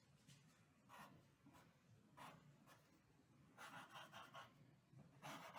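Faint scratching of a drawing tool on paper: a few single strokes, then a quick run of short strokes about three-quarters of the way through, and one more stroke near the end.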